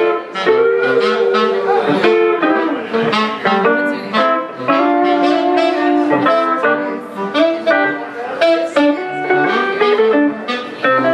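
Saxophone and hollow-body electric guitar playing a jazz tune live together, the saxophone holding long notes over the guitar's plucked chords and runs.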